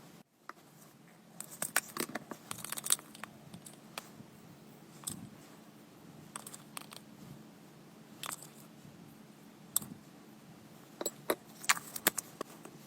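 Packaging and small objects being handled and opened: scattered sharp clicks, rattles and crinkles, coming in clusters about two seconds in and again near the end.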